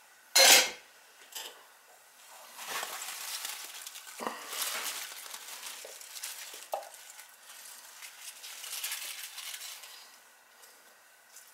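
Brussels sprouts tipped from a bowl onto a heaped pan of raw vegetables, rustling and tumbling for several seconds, with a few light clicks as they are spread by hand. A short loud knock about half a second in is the loudest sound.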